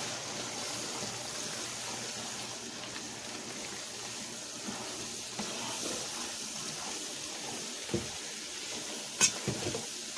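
Chicken hearts and onions frying in olive oil with seasoned flour, a steady sizzle in the pan while they are stirred together. A few short clacks near the end, the sharpest about nine seconds in.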